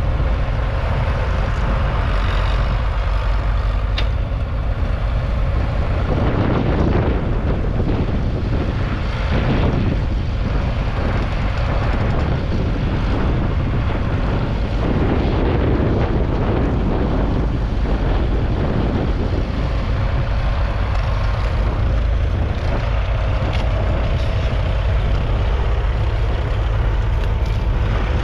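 Leyland 802 tractor's 3.8-litre four-cylinder diesel engine running steadily while pulling a plough.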